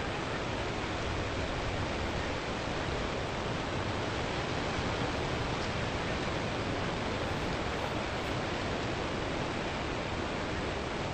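Steady, even hiss like static, unchanging throughout, with no other sounds.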